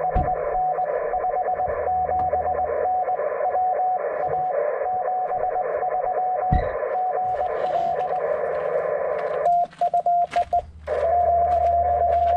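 Morse code signals through a ham radio transceiver's speaker over band hiss: a pileup of stations calling, their tones keyed on and off at about the same pitch. Past the middle the hiss drops out for about a second and a half under a few quick beeps, then a steady unbroken tone sounds.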